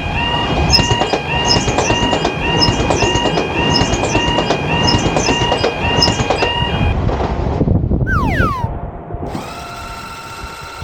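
Japanese level-crossing warning bell ringing "kan-kan" in a steady repeating pattern over the rumble of a passing train. The bell and rumble stop about seven seconds in. A falling whistle-like tone follows, then a steady held tone.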